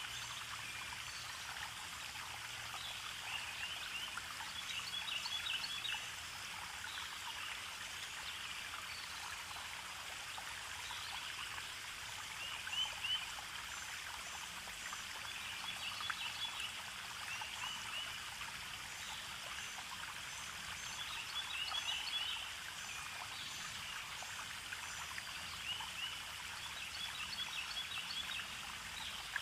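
Running water trickling steadily, with short clusters of high chirps every few seconds.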